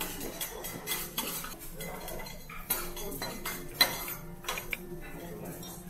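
Clinks and taps of utensils against ceramic dishes at a dining table, scattered irregularly, with one sharper clink a little before four seconds in.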